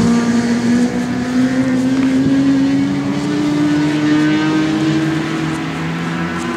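Racing motorcycles running on the track, their engine note climbing slowly in pitch and easing off near the end.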